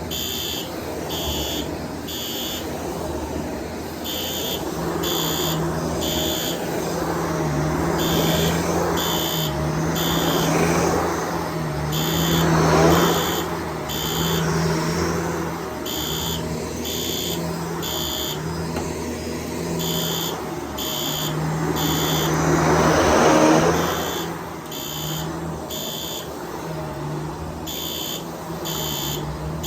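Shark DuoClean vacuum cleaner running, its noise swelling loudest twice, about twelve and twenty-two seconds in. Over it a System Sensor SpectrAlert Advanced P2R fire alarm horn sounds in code 3 (temporal pattern): three short high-pitched blasts, then a pause, repeating about every four seconds.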